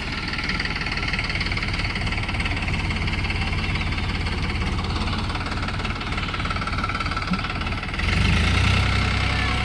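Tractor diesel engine running with a steady, even low beat. About eight seconds in it gets louder and heavier.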